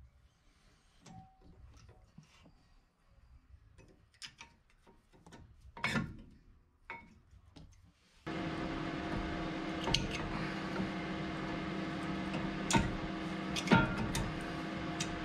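Light metallic clicks and taps of brake pads being seated in a caliper bracket and a brake caliper being fitted over the rotor. About eight seconds in, background music starts, and the clicks go on over it.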